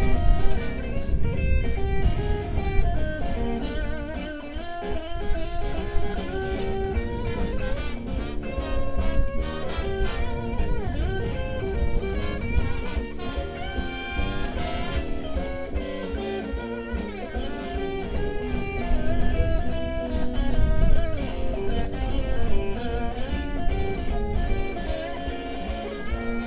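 Live blues: a guitar playing lead lines over a full band with drum kit and horns.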